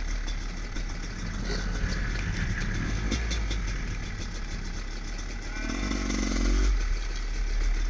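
Husqvarna WR300 two-stroke dirt bike engine running while riding, with a steady ride noise and a brief swell in engine note a little before six seconds in.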